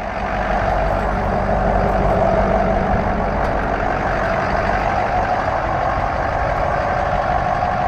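Ford 6.0-litre Power Stroke V8 turbo diesel idling steadily, heard close to the truck.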